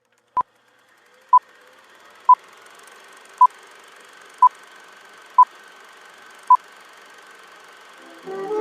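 Seven short electronic beeps of the same pitch, about one a second, over a faint hiss; music comes in near the end.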